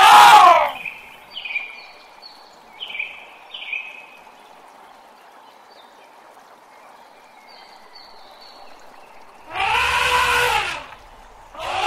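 Elephant trumpeting: a loud pitched blast right at the start and two more near the end, each rising and then falling in pitch, with a few short high chirps in between.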